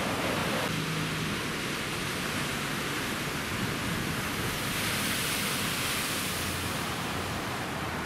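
Heavy ocean surf breaking over a rocky shore: a steady rush of churning white water, swelling a little louder about halfway through.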